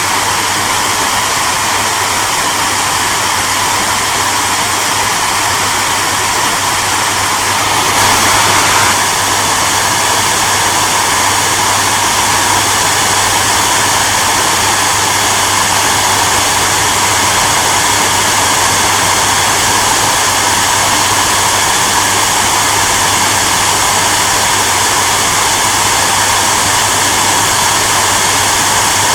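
Hair dryer running steadily: an even rushing blow of air over a low motor hum, briefly a little louder about eight seconds in.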